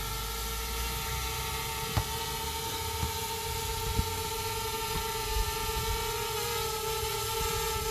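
Quadcopter drone's propellers whining steadily, the pitch wavering slightly near the end, with a few short sharp knocks heard through it.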